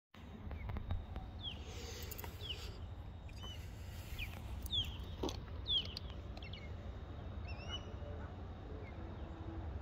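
A bird chirping, about six short calls that slide downward in pitch, over a steady low rumble and a few faint clicks. The motorcycle's engine is not running.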